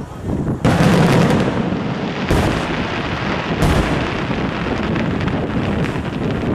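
Aerial firework shells bursting in a display: a loud bang about half a second in, more bangs about two and three and a half seconds in, over a continuous rumble and dense crackling.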